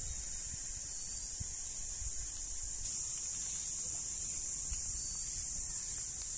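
Steady high-pitched drone of insects.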